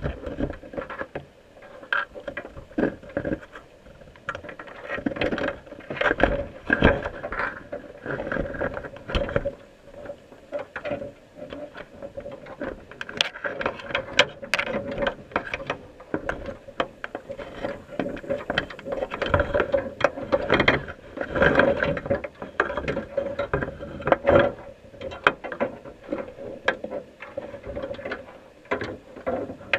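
Crabs' shells and legs clicking, tapping and scraping against the camera housing and the wire mesh of a crab pot, heard underwater: irregular sharp clicks throughout over a steady hum.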